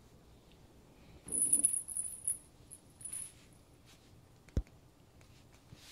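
Kittens batting toys about on a hardwood floor: a short, high-pitched jingling rattle about a second in, lasting about a second, and a single sharp tap near the end.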